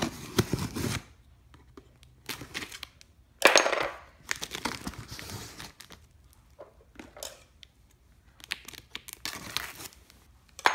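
Packing tape on a cardboard box being slit with a blade and pulled loose, with cardboard flaps scraping and rustling: irregular tearing bursts with quiet gaps, the loudest about three and a half seconds in.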